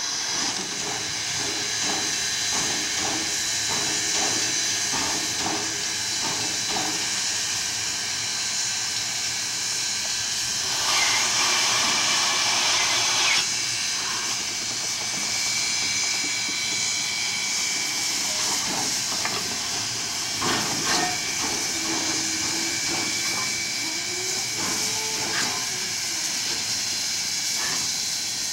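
Steam locomotive No. 18 standing with steam hissing steadily, with scattered clicks; about eleven seconds in a louder rush of steam lasts a couple of seconds.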